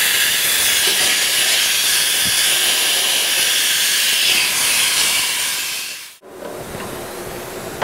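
Compressed air blasting out of a duct-cleaning skipper line's forward skipper ball inside a floor vent duct, blowing dust and drywall debris down the vent run. It is a loud, steady hiss that cuts off suddenly about six seconds in.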